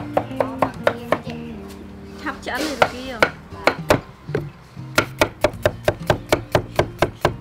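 A cleaver slicing cucumber on a thick wooden chopping block: runs of quick, sharp chops, coming about four a second in the last couple of seconds.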